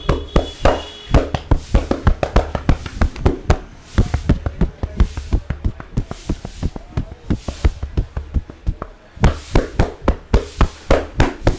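Barber's hands tapping and slapping rhythmically on the head in a percussive Indian head massage, about five strikes a second. There is a short lull about eight seconds in, then the strikes resume louder.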